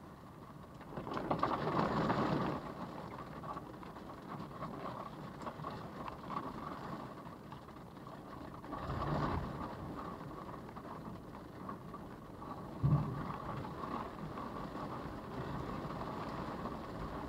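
Storm wind and rain buffeting a car, heard from inside the cabin through a dashcam microphone. A steady rush swells with gusts at about a second in and again near the middle, and there is a short thump about two-thirds of the way through.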